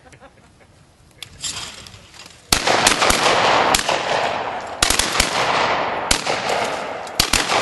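Several shotguns firing a rapid volley at thrown clay targets. About ten shots come in roughly five seconds, starting about two and a half seconds in, each echoing and running into the next.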